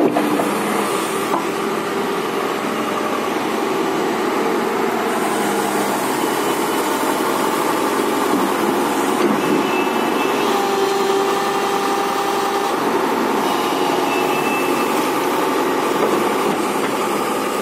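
Tata Hitachi EX200LC crawler excavator's diesel engine running steadily while the machine works its boom and bucket, with brief higher whining tones coming and going.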